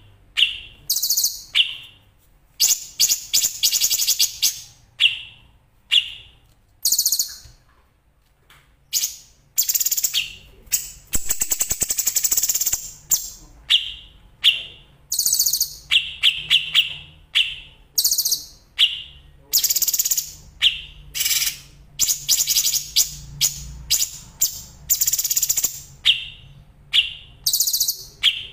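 Songbird training song from a masteran compilation of cucak cungkok, canary and bar-winged prinia (ciblek): short, high, fast trilled bursts, repeated at roughly one to two a second with brief gaps between them.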